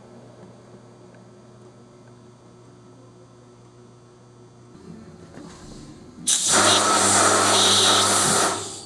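Low steady hum, then about six seconds in a loud hiss of compressed air starts, holds steady for about two seconds and fades out.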